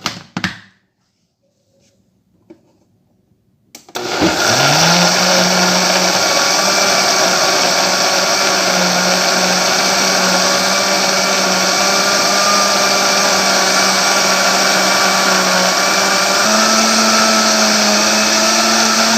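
Countertop blender switched on about four seconds in. Its motor spins up quickly, then runs steadily as it blends a liquid corn-cake batter, its pitch stepping up slightly near the end.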